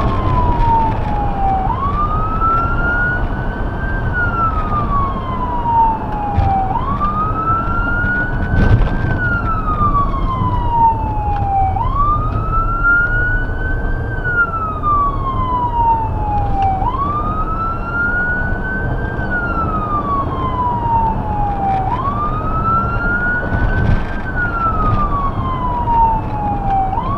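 Electronic emergency-vehicle siren of a 2017 Ford Explorer Sport response vehicle in wail mode. It rises quickly and falls slowly, about once every five seconds, over steady road and engine noise.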